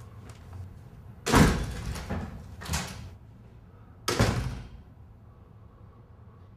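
A door slamming shut hard about a second in, followed by a couple of smaller knocks, then a second loud slam about four seconds in.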